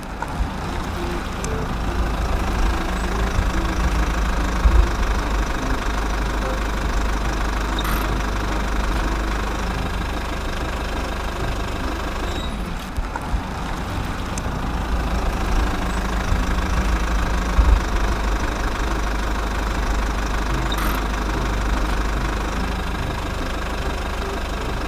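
Heavy engine running steadily at a low, knocking drone: the sound of a road roller at work.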